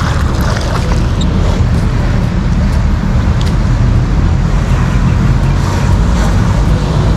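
Steady low engine rumble of road traffic, continuous and loud, with a hiss over it.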